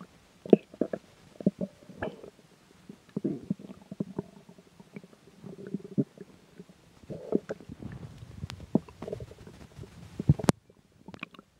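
Stomach growling: irregular gurgles, squelches and short pops. A sharp click comes near the end, and the sound drops off abruptly after it.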